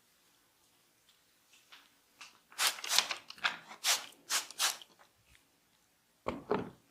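A barber's hands rubbing and scratching a client's hair and scalp during a head massage: a run of about seven quick rasping strokes, then two duller strokes near the end.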